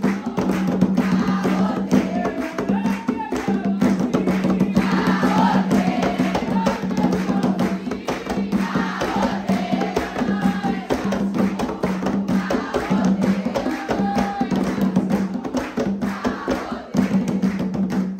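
A congregation singing an Umbanda ponto (sacred chant) together, over a steady beat of drums and hand clapping.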